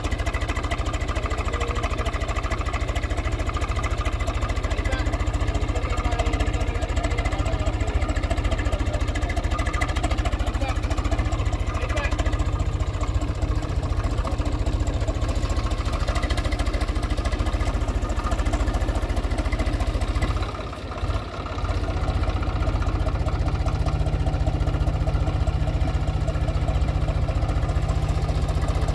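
Small farm tractor's diesel engine running steadily. About twenty seconds in its sound drops away briefly, then it runs on with a stronger low hum.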